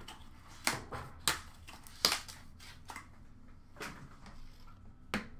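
A cardboard presentation box and hard plastic card cases being handled, making a string of sharp rustles and clicks. The loudest comes about two seconds in.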